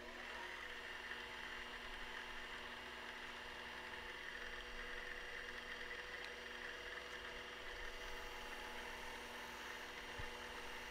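Metal lathe running steadily, winding up to speed in the first half second, with a steady whine and a hiss over it. A hand file and then emery cloth are held against the spinning stainless steel trumpet mouthpiece to smooth its edge.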